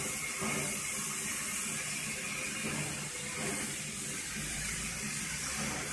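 Black Hills Central Railroad steam locomotive standing at rest, with a steady hiss of escaping steam.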